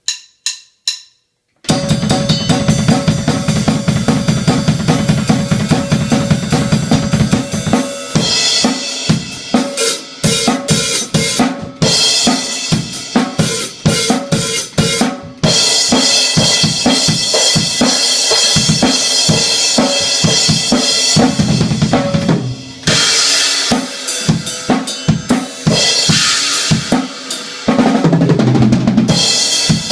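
Drum kit solo on snare, bass drum and Zildjian ZHT cymbals. It opens with a few separate strokes, then about two seconds in breaks into fast, continuous playing with cymbal crashes ringing over the drums.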